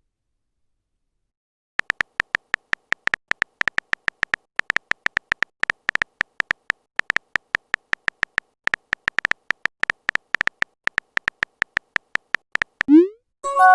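Rapid string of short, high electronic beeps, all on one pitch, coming several a second at uneven spacing after about two seconds of silence. A quick rising electronic sweep comes near the end.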